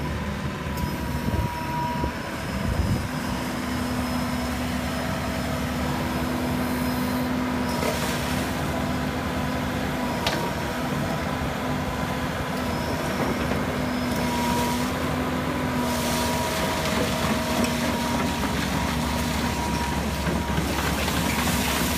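Cat 308D tracked excavator's diesel engine running steadily, with whining tones that come and go over the engine noise and swells of hiss now and then as the machine works.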